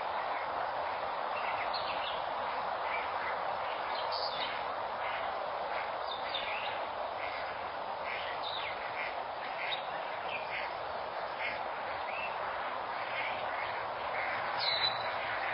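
Outdoor ambience through a security camera's microphone: a steady hiss with many short bird chirps scattered throughout, and one louder call near the end.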